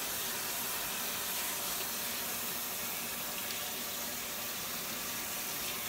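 Kitchen tap running steadily into a sink as hands are rinsed under it.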